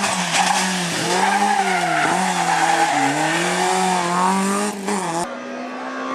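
BMW M3 rally car's engine at high revs, dropping sharply and picking up again several times over the hiss of tyres sliding on the stage surface. About five seconds in it cuts abruptly to a steadier engine note.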